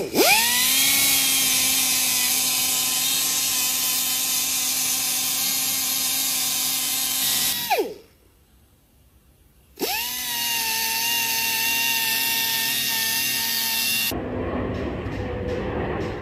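Pneumatic tyre buffer spinning up with a rising whine and running steadily, roughing the rubber of a truck inner tube around a puncture so that a patch can be stuck on. It winds down about eight seconds in, stops for about two seconds, then starts again and runs until it cuts off about two seconds before the end.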